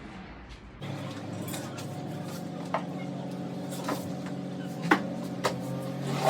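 Several sharp clinks of glass or crockery being handled, over a steady low hum.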